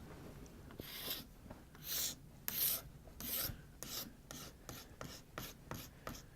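Sharp knife blade lightly scraping the wood of an old crosscut saw handle, a dozen or so short scraping strokes that come faster in the second half.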